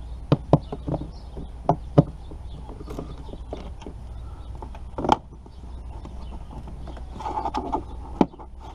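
Socket ratchet working bolts loose on a car's plastic cowl cover: scattered sharp metallic clicks and knocks, several in the first two seconds and one louder knock about five seconds in. Near the end the hard plastic cover scrapes and knocks as it is pried up by hand.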